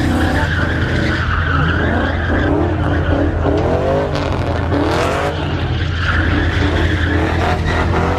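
Pickup truck doing donuts: its tires squeal steadily under a constant engine note. The engine revs swell and drop twice in the middle, and the squeal comes back strongly near the end.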